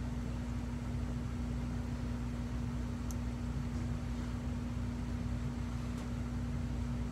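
Steady machine hum with one constant low tone over a low rumble, with a few faint ticks about three and six seconds in.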